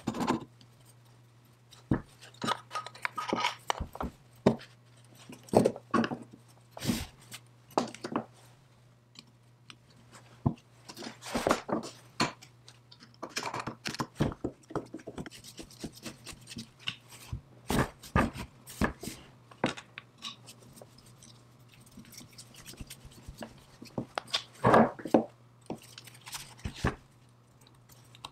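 Irregular clicks, taps and scrapes of metal parts being handled and fitted together as a cast-iron belt lacer with brass combs is reassembled by hand. The loudest knocks come near the start and about two thirds of the way through.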